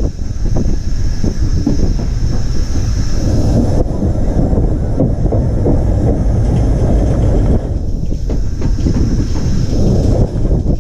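Cab-side sound of Taff Vale Railway No.85, an 0-6-2 steam tank locomotive, running along the line: a loud, continuous rumble with irregular knocks and clatter from the wheels on the rails.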